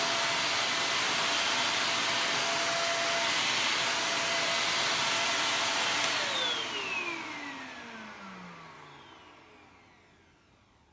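Ariete 2761 Handy Force 600 W bagless stick vacuum cleaner running steadily, then shut off about six seconds in, its motor whine falling in pitch and fading as it spins down.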